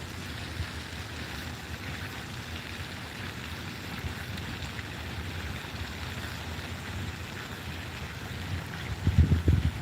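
Wind buffeting the microphone outdoors: an irregular low rumble over a steady hiss, with stronger gusts about nine seconds in.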